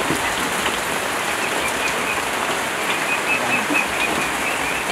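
Steady rain falling, an even hiss throughout, with a faint series of short high notes around the middle.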